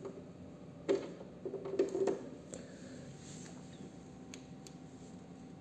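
Handling noise from plugging a cable jack into an input of a Yamaha MG16XU mixing console and pressing its channel buttons: a thump about a second in, scratchy rubbing, then a few light clicks, over a faint steady hum.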